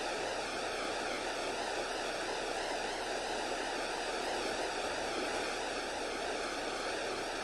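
Steady, even rushing of flowing river water, with no single event standing out.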